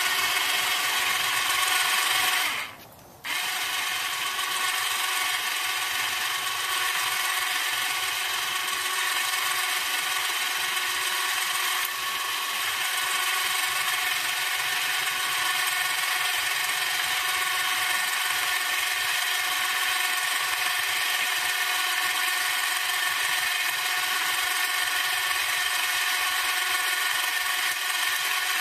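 Superwinch Winch-In-A-Bag 12-volt electric winch running with a steady whine, reeling in its cable under load as it drags a wooden post of about 30 pounds, powered from a portable jump starter. It stops briefly about three seconds in, then restarts and runs on steadily.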